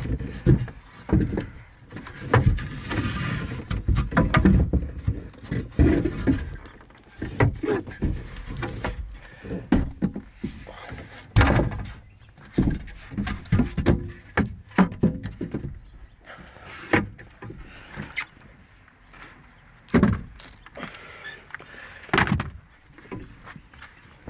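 Irregular knocks, bangs and creaks as a boat's floor is pried and pulled loose from its stringers.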